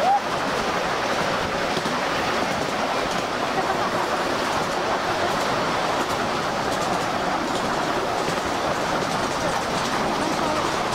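Ride-on miniature steam train and its passenger cars running along the track: a steady rumble and rattle of small wheels on the rails.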